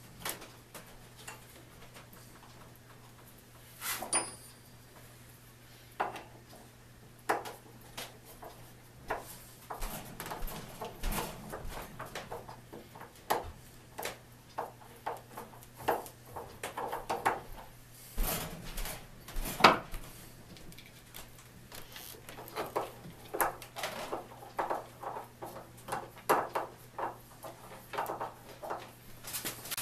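Irregular knocks, clicks and clatter of hand tools and wooden or metal parts being handled on a workbench, sparse at first and busier from about nine seconds in, over a steady low hum.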